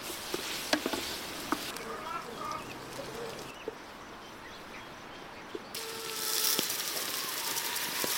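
Peppers and onions sizzling in a large aluminium pot while a wooden spoon stirs them, with sharp taps of the spoon against the pot. A quieter stretch follows with a few bird chirps. From about six seconds there is a louder hiss as dry bulgur pours into the hot pot.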